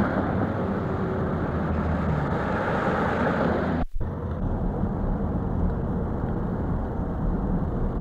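Road traffic noise: cars and trucks running along a busy highway. It drops out briefly about four seconds in and comes back as a steadier, duller road noise.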